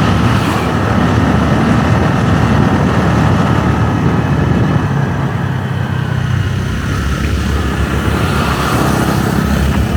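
Motorbike engine running steadily while riding along a road, under a continuous rush of road noise.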